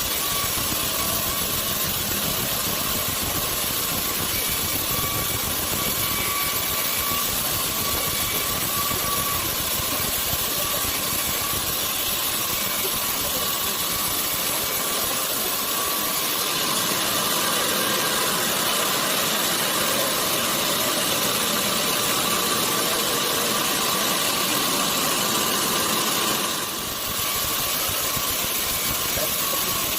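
Sawmill machinery running steadily: a loud, even noise with a steady whine through it, dipping briefly near the end.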